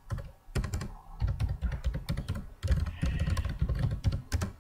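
A password being typed on a computer keyboard: a quick run of key clicks with a couple of short pauses, stopping near the end.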